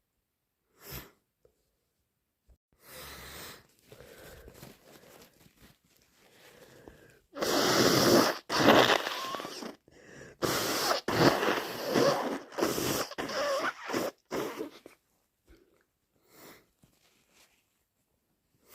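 A person with a cold blowing their congested nose hard, several long blows in a row from about seven seconds in, with fainter breathing and sniffing noises before them.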